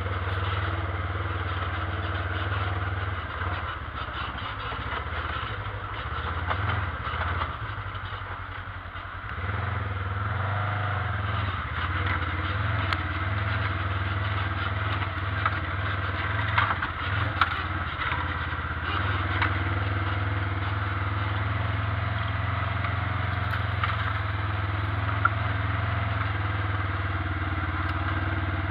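ATV engine running steadily while riding over a bumpy old railroad bed, with knocks and clatter from the vehicle bouncing over the remaining ties. The engine drops off briefly about eight seconds in, then picks up again.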